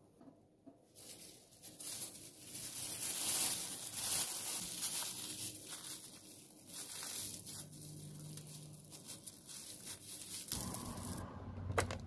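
Close crinkling and rustling of a white paper tissue rubbed, twisted and crumpled between the fingers, starting about a second in. It stops shortly before the end, giving way to a low hum and one sharp click.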